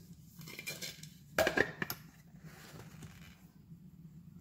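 Kitchen containers being handled: soft rustling, with a brief clatter of clicks about a second and a half in.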